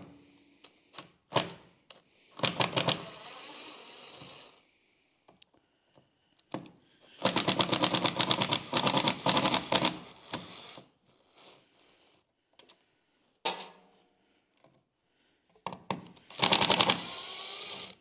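Cordless power driver backing out three Phillips screws from a truck's door-mirror mount: a rapid rattle in three separate bursts, with a few light clicks of handling between them.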